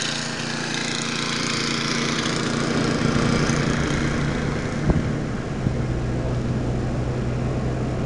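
A car's engine and tyres running at low speed on a snow-covered road, with a snow blower's engine running close by for the first few seconds as it is passed, then fading. One short thump about five seconds in, typical of the car going over a bump in the packed snow.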